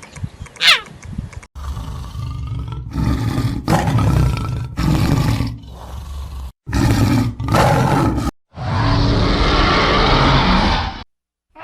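A series of short animal roars and growls cut one after another, with hard breaks between them and a brief falling whistle-like sweep near the start. The longest, roughest roar comes in the last few seconds.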